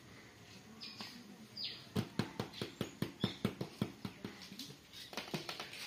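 Red plastic lid being fitted onto a clear plastic jar: a fast run of sharp plastic clicks, several a second, starting about two seconds in.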